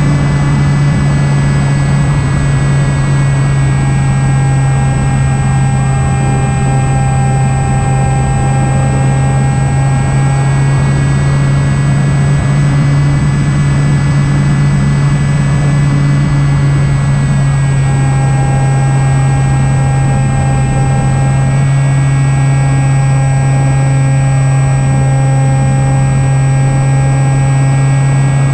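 E-flite Opterra flying wing's electric motor and pusher propeller running at steady throttle: a loud, even drone that holds one pitch throughout.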